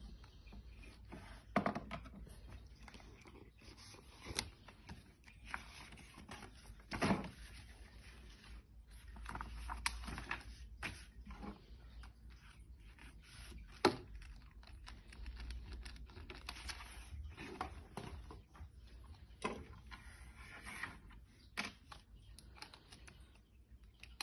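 Plastic toy tools and a toy car wheel handled on a wooden desk: irregular light clicks, knocks and scrapes of plastic, with a few sharper knocks, and paper rustling.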